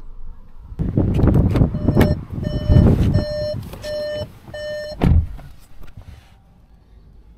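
Bumping and rustling of someone getting into the driver's seat of a CUPRA Formentor. The car's warning chime beeps about twice a second, six or so times, then stops just before the driver's door shuts with a single heavy thud about five seconds in.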